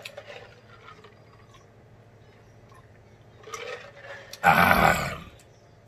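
A man drinks quietly from a glass jar. About four and a half seconds in he lets out a loud, rough, breathy exhale lasting under a second, a reaction to the burn of extra-spicy hot sauce.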